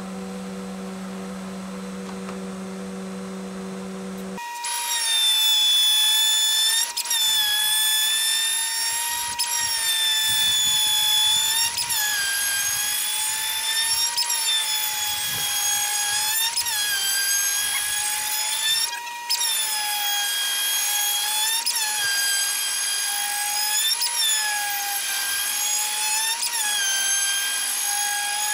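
A steady low hum, then about four seconds in a CNC router spindle with a wide surfacing bit starts planing a board flat. It makes a loud, high whine that dips briefly in pitch about every two and a half seconds.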